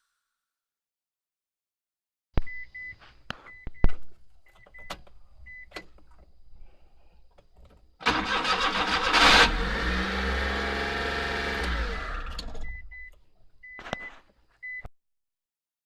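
Nissan Clipper U71V kei van's engine cranking and catching about eight seconds in, running for about four seconds, then shut off. Clicks and short high beeps come before and after it.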